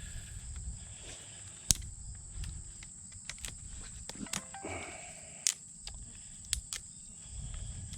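Insects chirring steadily at a high pitch in the woods, with scattered sharp clicks and snaps over them.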